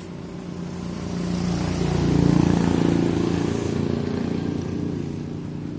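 A motor vehicle's engine running, growing louder to a peak about two seconds in and then slowly fading.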